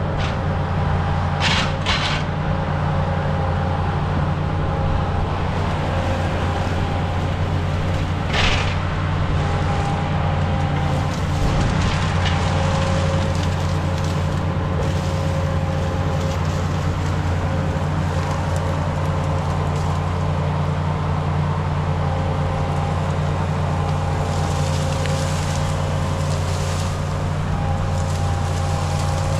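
Tracked skid steer's engine running steadily, with a steady whine over the engine sound. A few sharp knocks come near the start, and the loudest is about eight seconds in.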